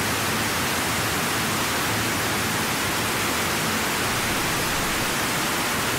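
Loud, steady hiss of static noise, even across all pitches, covering the soundtrack.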